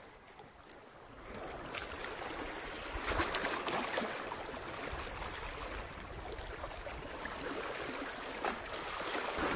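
Small waves lapping and washing over shore rocks, a steady rustling wash that swells about a second in and again at about three seconds.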